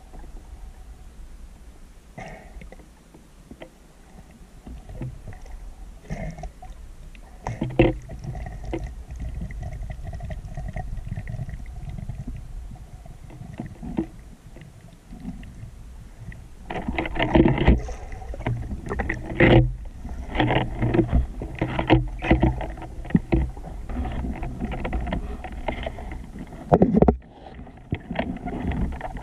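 Muffled underwater noise picked up by a camera in its waterproof housing as a spearfisher swims: a steady low rumble with scattered clicks and knocks, growing louder and busier with many sharp knocks about seventeen seconds in.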